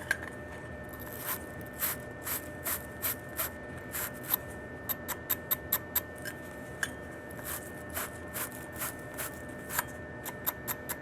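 A 3/4-inch wire fitting brush scrubbing the inside and edge of a copper union fitting to clean it for soldering: a long run of short scraping strokes, a few a second.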